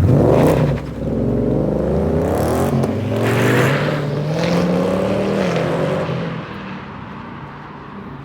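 A car engine revs sharply, then pulls away under hard acceleration, its pitch climbing for about five seconds before it fades into the distance.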